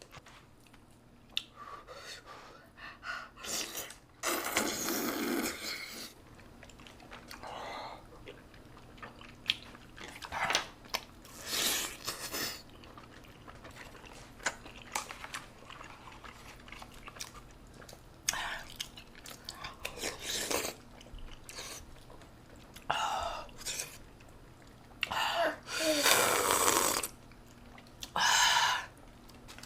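Close-up eating sounds: chewing and smacking mouth noises with scattered small clicks, and several louder noisy bursts lasting a second or two each.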